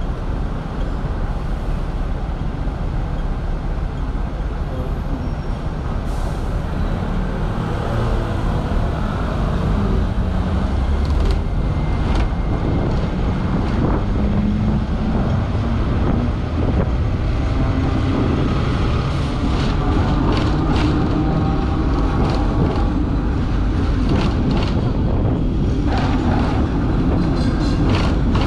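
Hong Kong double-decker tram running along its street track, a continuous rumble and rattle that grows louder about a third of the way in. Clicks and knocks of the wheels on the rails come through in the second half.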